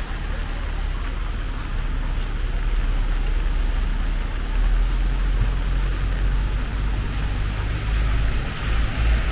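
Steady rain hiss over a continuous low rumble, with no distinct events.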